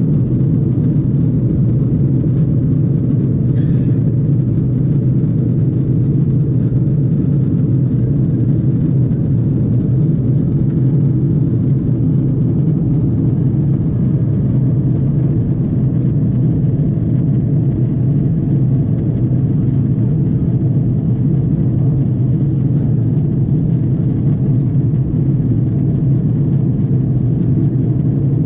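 Steady low roar of an Airbus A330-300 in flight, its engines and the airflow heard from inside the passenger cabin.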